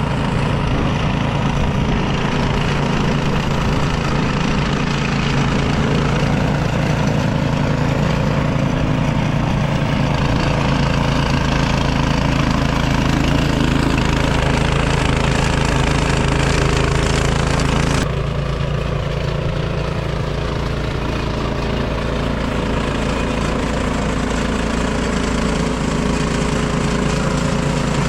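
Craftsman gas snowblower engine running steadily at working speed while clearing snow. About two-thirds of the way in the sound shifts abruptly and becomes slightly quieter, then runs on steadily.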